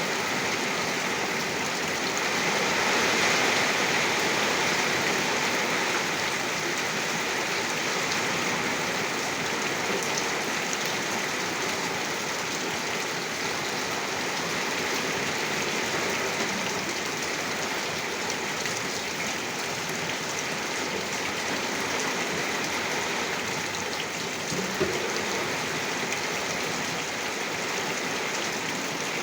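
Heavy rain falling steadily: a dense, even hiss of drops, with one brief sharp tap late on.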